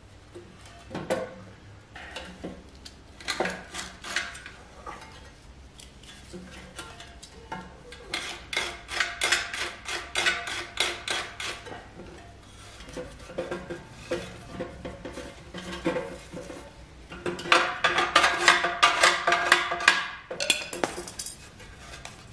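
Sheet-metal casing and internals of a cut-open exhaust silencer clanking and rattling as its packing and baffles are pulled out by hand, in irregular bursts of clinks that are loudest and densest about 8 to 11 seconds and 17 to 21 seconds in.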